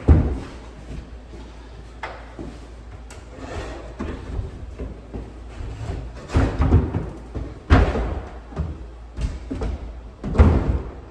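Wooden cabinet boxes knocking and scraping as they are shifted into position: several sharp knocks, loudest near the start and in the second half, with dragging noises between.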